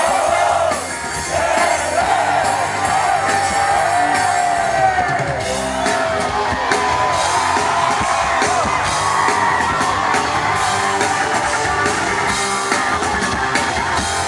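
Live pop-rock band playing with singing over guitar, and drums beating a steady rhythm from about five seconds in.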